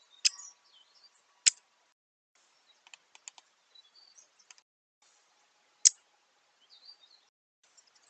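Sharp taps of birds' beaks striking a seed-filled feeder dish. Three loud single taps and a quick run of lighter ones come between faint high chirps of small birds, and the sound breaks off briefly several times.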